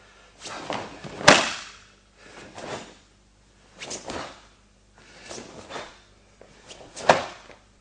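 A karateka's cotton gi swishing and snapping with each technique of a kata: five short swishes, with sharp cracks about a second in and near the end.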